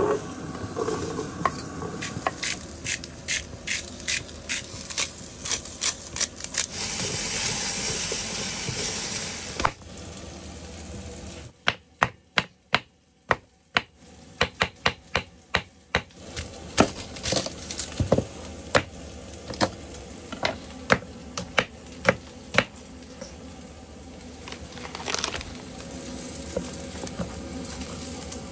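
Kitchen knife chopping green bell pepper and onion on a wooden cutting board: a long series of sharp knocks, in quick runs of a few strokes a second with short pauses between.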